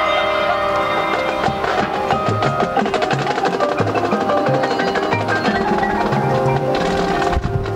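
Marching band playing: held chords at first, then about a second and a half in a fast run of quick, evenly repeated percussion strokes with mallet percussion over moving low notes, easing briefly near the end.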